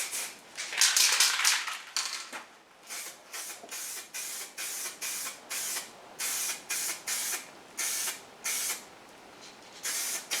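Aerosol spray-paint can hissing as paint is sprayed onto a wheel rim: one longer pass about a second in, then a quick series of short spurts with brief pauses between them.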